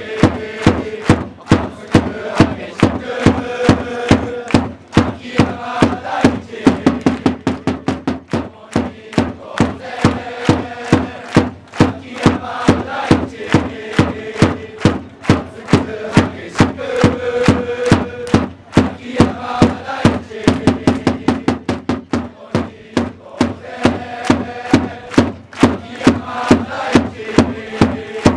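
Crowd of football supporters chanting in unison to a steady drumbeat. The beats come closer together for a couple of seconds about seven seconds in.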